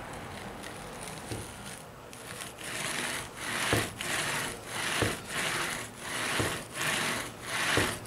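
HO-scale boxcar pushed back and forth by hand along the rails, its wheels rolling and rubbing through wet putty to press flangeway imprints into it. The strokes settle into a steady back-and-forth rhythm of about two a second from about two seconds in.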